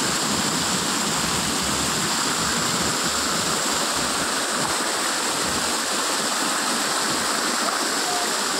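Garden fountain splashing: a steady, even rush of falling water.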